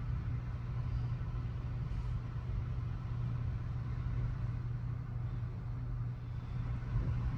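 A steady low hum, as of a motor or engine running.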